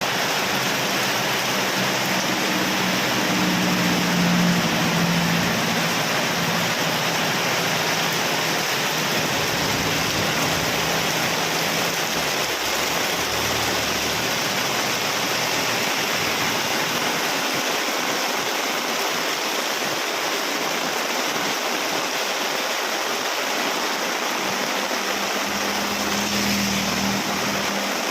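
Heavy rain falling steadily, an even hiss. A low hum rises faintly under it a few seconds in and again near the end.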